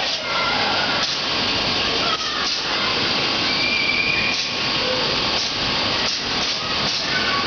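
Steady rushing hiss of air from the air-powered ball blasters of a soft-play shooting gallery, with faint children's voices over it.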